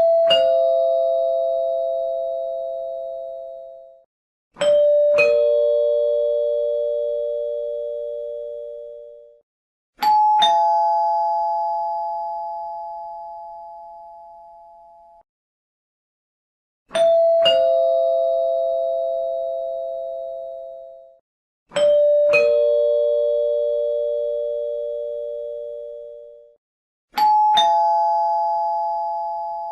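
Doorbell chime ringing ding-dong six times: two struck notes, the second lower, each pair ringing out and fading over about four seconds. Three chimes at different pitches (the second lower, the third higher) are played in turn, and the set of three is repeated.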